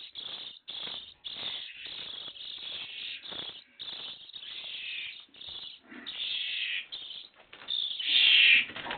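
Nestling songbirds calling in a high, rapid chorus of begging chirps, loudest near the end: hungry baby birds begging to be fed.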